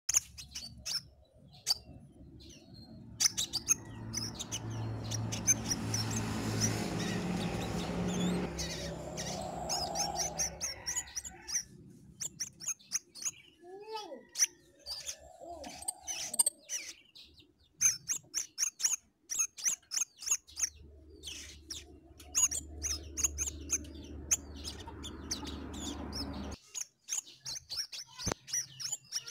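Crimson sunbird (sepah raja) calling: many short, sharp, high chirps, some in quick runs, loudest near the end. A low hum swells and fades in the background twice.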